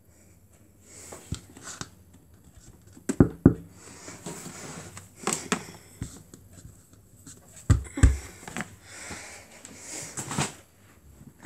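Close handling noises: rustling and scraping as things are moved by hand, with a few dull knocks, two pairs of them.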